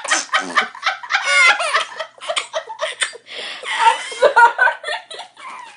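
Baby giggling and laughing in a quick run of short bursts, with a high-pitched squeal about a second in.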